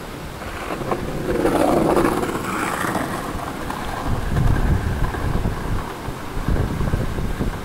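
Wind buffeting the microphone in uneven low gusts, with a skateboard's wheels rolling on the concrete sidewalk as it passes close by; the rolling noise swells and fades between about one and three seconds in.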